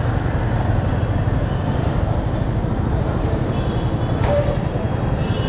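Motorcycle engines idling with a steady, fast low rumble. A single sharp click comes about four seconds in.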